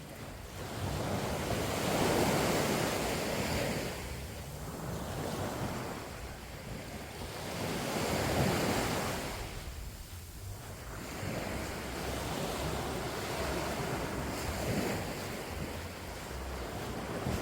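Small sea waves washing up the sand, the surf swelling and fading every few seconds, with wind buffeting the microphone.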